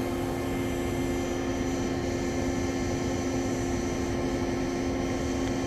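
Steady machine hum with an even rushing noise underneath, holding level throughout: industrial equipment running in a machine shop.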